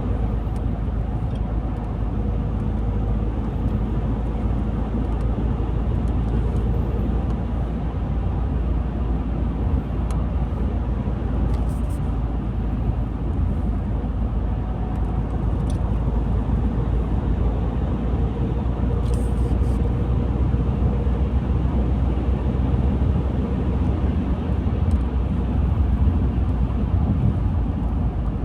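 Car driving along a country road: a steady low rumble of engine and tyre noise that holds even throughout.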